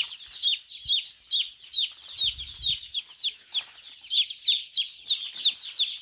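A flock of day-old Sonali and FFG chicks peeping without pause, a dense chorus of high, downward-sliding cheeps several a second.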